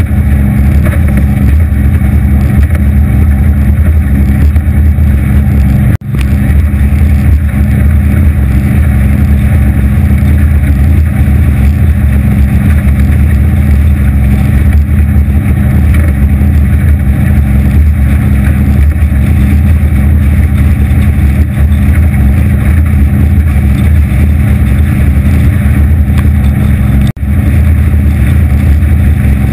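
Boat underway at cruising speed: a 250 hp Evinrude outboard motor running steadily, with wind and water noise from the aluminium Anytec 750 SPD hull crossing choppy water. The sound briefly cuts out about six seconds in and again near the end.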